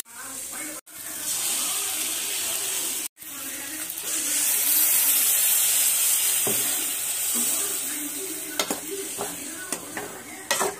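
Chopped flat beans sizzling as they fry in a steel pan, a steady hiss that breaks off for a moment twice in the first few seconds and grows louder about four seconds in. A metal ladle stirs and knocks against the pan, the knocks sharper near the end.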